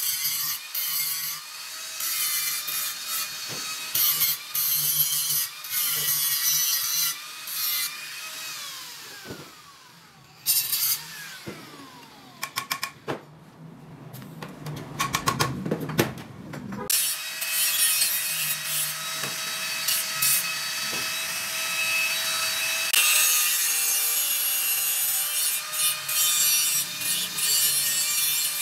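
Handheld angle grinder grinding stainless steel tube in short stop-start passes, its whine falling as the disc spins down around nine seconds in. After a few seconds of clicks and knocks, it runs in a longer steady grind.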